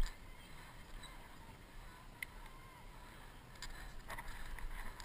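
Faint open-air ambience picked up by a handheld action camera: a low rumble of wind on the microphone, a brief bump right at the start, and faint distant voices toward the end.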